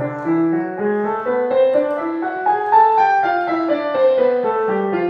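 Piano playing the A melodic minor scale with both hands: an even run of notes up, with raised sixth and seventh (F sharp, G sharp), turning about three seconds in and coming back down with the sixth and seventh natural.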